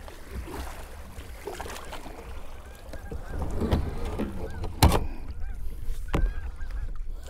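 Kayak paddle strokes splashing in lake water, with wind rumbling on the camera microphone. A sharp knock about five seconds in as the paddle comes down on the kayak, and faint geese honking in the second half.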